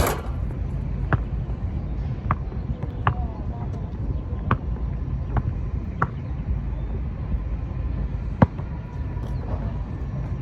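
Wind buffeting the microphone with a steady low rumble, broken by a sharp swish at the start and a handful of short, sharp ticks spread irregularly through the rest.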